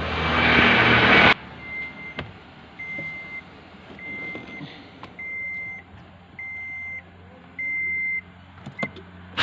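A loud rushing noise cuts off abruptly a little over a second in. Then a steady high electronic beep repeats about six times, each beep about half a second long and roughly every 1.2 seconds, over a low hum.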